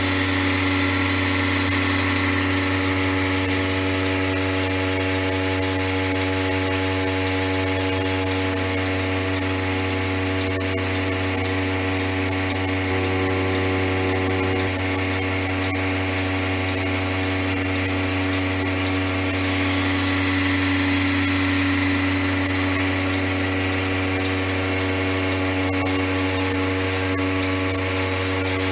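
Milking machine's electric vacuum pump running steadily with a constant low hum.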